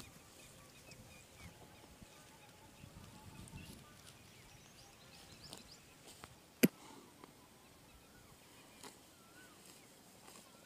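Quiet rural ambience with scattered bird chirps, and one sharp click a little past halfway.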